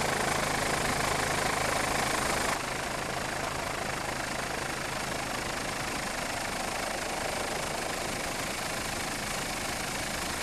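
Steady engine and rotor noise of a helicopter heard from inside its cabin, with a low hum; it becomes quieter about two and a half seconds in.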